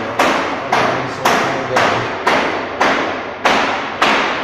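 Steady hammering, about two blows a second, each blow ringing out and fading before the next.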